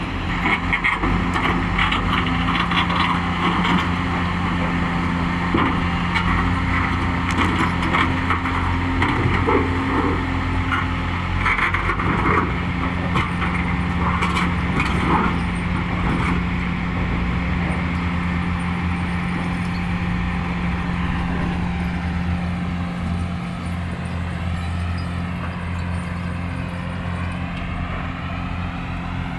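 Heavy earthmoving machine's diesel engine running steadily, with dense rattling and clanking of rock and metal through roughly the first half. Later the clanking eases and a faint whine wavers up and down.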